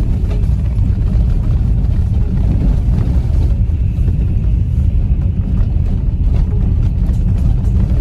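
Steady low rumble of a car driving slowly over a rough, unpaved dirt road, heard from inside the cabin with the windows shut.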